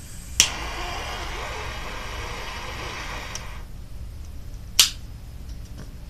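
Butane torch lighter clicking alight, then its jet flame hissing steadily for about three seconds before cutting off. A second sharp click comes about a second later.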